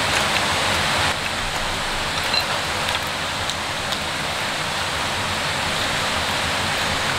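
Steady rushing of water outdoors, an even hiss with no pitch or rhythm.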